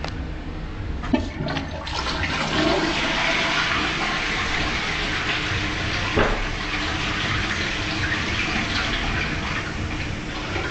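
Toilet flushing: a sharp click about a second in, then a loud rush of water that keeps going, with a brief knock partway through.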